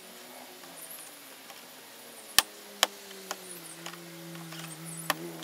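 Sharp plastic clicks and snaps from a plastic trim pry tool working a speaker grille's clips loose, with two loud snaps about half a second apart near the middle and another near the end.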